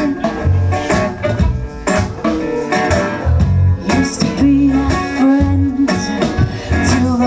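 Live band playing: acoustic guitar, electric bass, bowed violin and percussion, with deep bass notes, held violin tones and steady beats.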